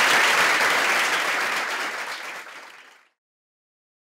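Audience applauding, fading out and gone about three seconds in.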